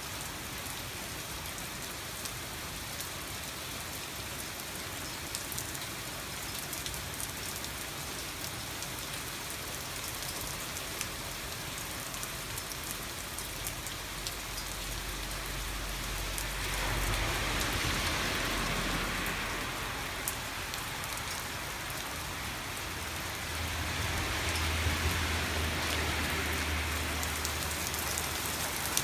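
Heavy thunderstorm rain falling steadily, an even hiss of drops that grows louder about two-thirds of the way through and again near the end.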